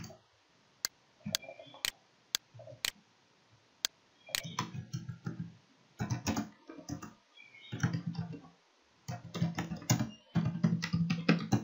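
Typing on a computer keyboard: a few scattered single clicks at first, then quick runs of keystrokes from about four seconds in.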